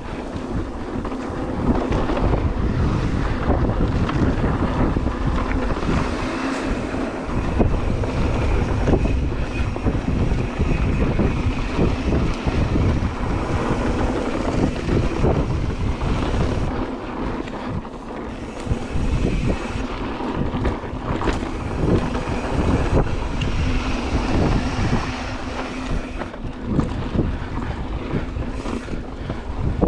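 Mountain bike riding over dirt singletrack: wind buffeting the GoPro's microphone over the rumble of tyres on dirt, with a constant run of small knocks and rattles from the bike on rough ground.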